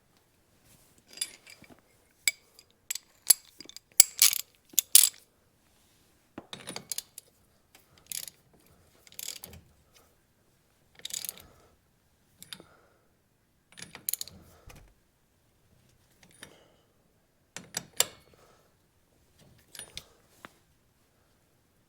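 Hand ratchet clicking in short spells, with metal tools clinking, in irregular bursts.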